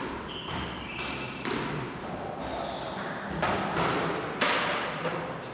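Squash ball thudding against the court walls and floor, with one sharp hit about four and a half seconds in.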